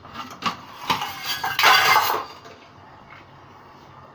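Metal clinks and a loud clatter about a second in as a metal lid is handled and set over a frying pan on a gas stove, followed by a quieter steady background.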